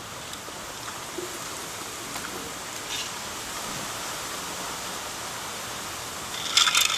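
Steady outdoor hiss of a breeze through the trees and on the microphone, with a short crackle near the end.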